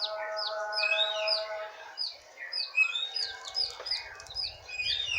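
Blue-crowned hanging parrot (serindit) calling: a quick run of short, high chirps, each sliding down in pitch, about two or three a second. A steady held lower tone sounds under the first two seconds.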